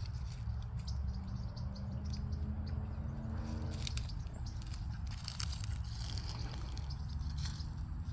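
Short bird chirps and clicks over a steady low rumble, with a drawn-out pitched call or tone from about one to four seconds in.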